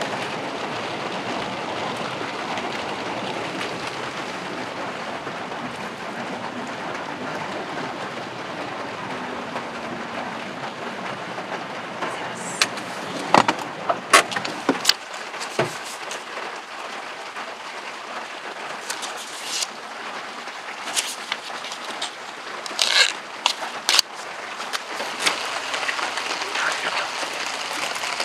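Steady rain falling, with scattered sharp clicks and knocks from about twelve seconds in, thickest around the middle and again near twenty-three seconds.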